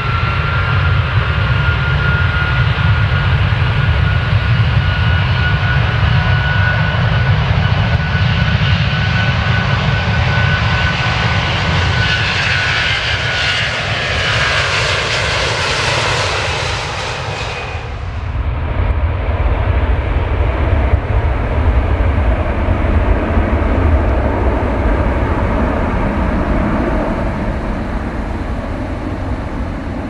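Airplane taking off: engines at takeoff power, a loud steady low rumble and rushing noise with a high whine that slowly climbs in pitch. About eighteen seconds in the high hiss drops away suddenly, leaving a lower, rougher rumble.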